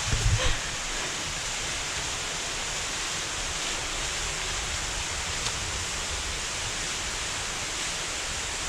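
Waterfall rushing steadily, a constant hiss of falling water over a low rumble, with a few low bumps at the very start.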